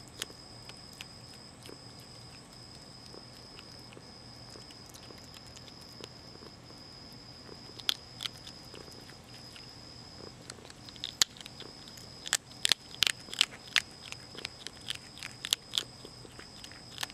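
Young Virginia opossum chewing dry cat food kibble: sharp, irregular crunches, few at first and then coming quickly in a run past the middle.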